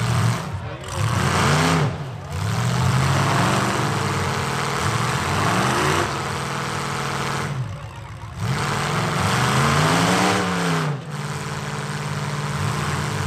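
Demolition-derby truck engines revving hard, the pitch rising and falling several times, with the biggest rev about ten seconds in, over a loud, rough exhaust.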